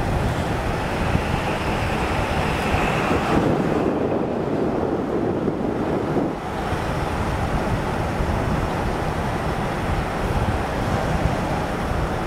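Steady rumble of a truck driving along the road, heard from inside, with wind rushing over the microphone. For a few seconds near the middle the hiss dulls and the rumble swells.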